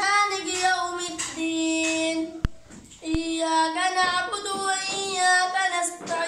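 A child chanting Quranic recitation (qira'at) in a melodic, sung style with long held notes. There is a short break about two and a half seconds in, marked by two sharp clicks.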